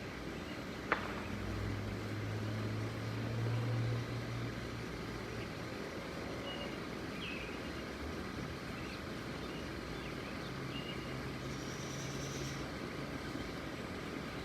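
Airbus A340-600 airliner passing overhead, a steady rumble of its four jet engines with a low hum in the first few seconds. A single sharp click about a second in.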